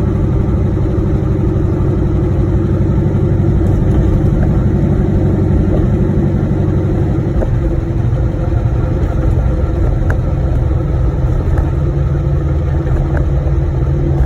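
Car engine and T56 six-speed manual transmission running steadily, with the gear noise the transmission has developed, which a transmission shop put down to a probably worn countershaft or related parts.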